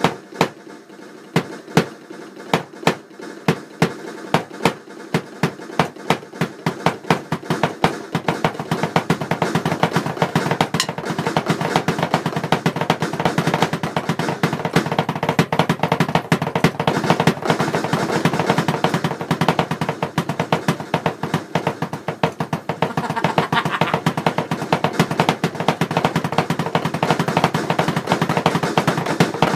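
Drumming on an electronic drum kit: separate strokes a few a second at first, speeding up after about eight seconds into a fast, continuous roll that grows louder near the end.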